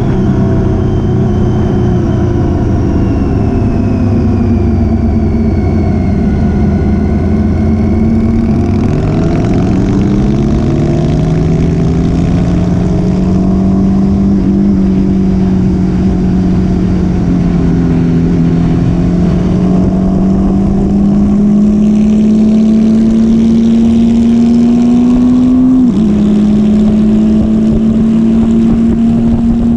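Motorcycle engine running under way. Its pitch falls over the first several seconds and climbs again about nine seconds in. It then holds fairly steady with a slow rise, and dips briefly a few seconds before the end.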